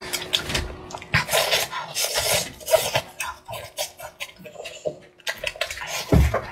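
Close-miked eating sounds: chewing, crunching and lip smacks in quick irregular bursts, with a low thump about six seconds in.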